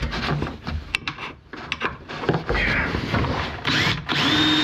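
Clicks and knocks of a cordless drill and a self-tapping screw being set against an aluminium drawer-runner frame, then about four seconds in the drill spins up and runs steadily, driving the screw in.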